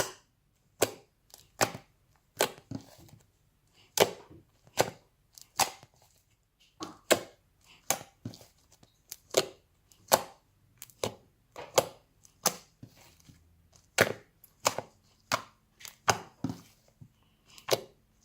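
Fluffy slime being squeezed and worked by hand, giving a series of sharp pops and clicks, about one or two a second, as trapped air bursts.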